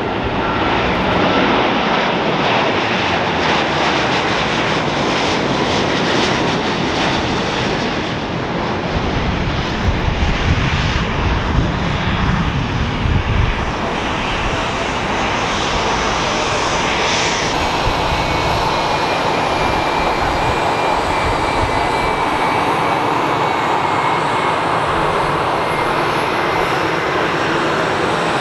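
Twin-engine jet airliners at takeoff power: the Rolls-Royce Trent XWB engines of a Qatar Airways Airbus A350 as it climbs away, with a deep rumble from about ten to thirteen seconds in. About two-thirds through the sound changes to another widebody jet's takeoff, with a faint falling whine over the engine noise.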